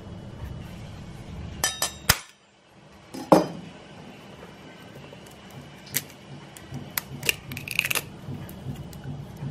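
Eggs being cracked against glass bowls: a few light clinks, then one sharp knock with a short ring about three seconds in, followed by scattered small clicks of eggshell as an egg is broken open.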